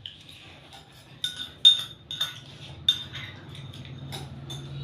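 Cutlery and dishes clinking: several sharp, ringing clinks at irregular moments, the loudest a little under two seconds in.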